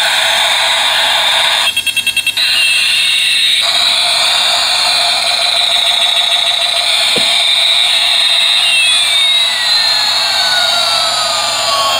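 Electronic jet-engine sound effect from a battery-operated toy A380 airliner's small speaker: a steady whine with tones sweeping up and down. A quick run of about seven beeps comes about two seconds in, and a single click a little past the middle.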